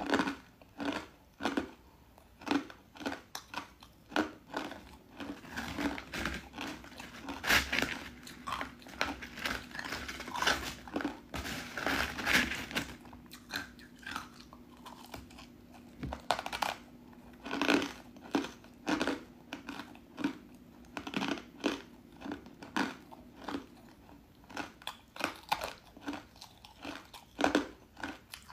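Close-up crunching and chewing of crisp white ice pieces dusted with matcha powder: a run of sharp crunches at irregular intervals, several a second at times.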